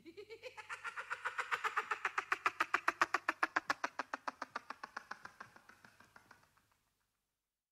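Closing jingle of a children's radio play: a fast, even run of short pitched pulses, about seven a second, that swells over the first three seconds and then fades away, ending about seven seconds in.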